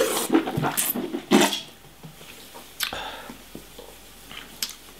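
A wine taster slurping red wine, drawing air noisily through a mouthful to aerate it: a run of wet, hissing sucks in the first second and a half, then two shorter ones.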